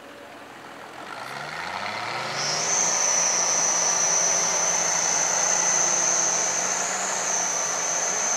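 Off-road truck's engine revving up under load as it climbs a muddy bank, its pitch rising over the first couple of seconds and then holding. A steady high-pitched whine rides over the engine from about two and a half seconds in.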